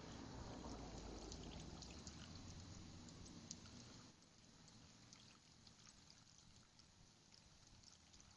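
Faint fizzing and bubbling of vinegar reacting with baking soda, the carbon dioxide foam welling up. It is louder for the first few seconds, then dies down, with small crackles of popping bubbles throughout.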